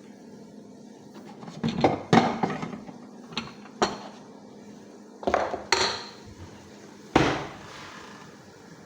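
Metal cookware and utensils clanking as they are handled and set down: several sharp knocks in small clusters, the loudest about seven seconds in.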